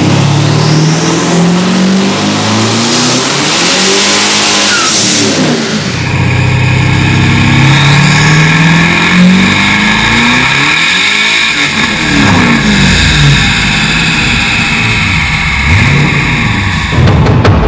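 Twin-turbo V8 of a Hennessey VR1200 coupe running hard on a chassis dyno: its note climbs steadily over several seconds, then drops away, about three times over. The rear tyre spins on the dyno rollers as it runs.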